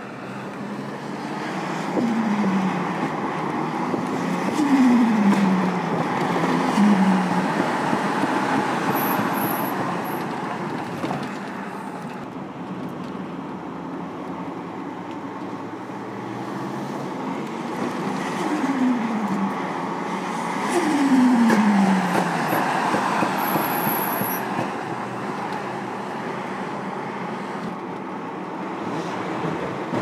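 Tuned Nissan Skyline R34 GT-R's twin-turbo straight-six, heard in two runs that each swell and then fade. The engine note drops in pitch several times on each run.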